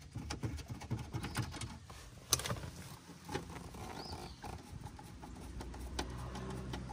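Hand screwdriver turning a screw out of plastic dash trim, with irregular small clicks and taps of the tool against the plastic. One sharper click comes about two seconds in.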